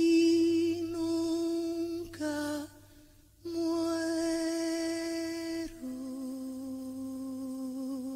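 A wordless solo voice holding long notes with a slight vibrato: one held note, a short lower note, a pause of under a second, then another long note that steps down to a lower held note.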